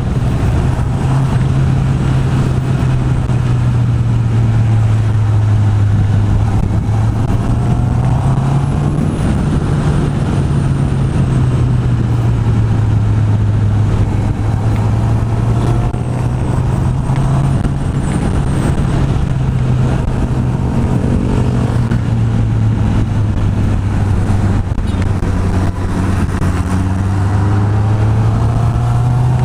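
Honda CB650R's inline-four engine running through its stock exhaust while riding, a steady note that rises and falls gently as the revs change.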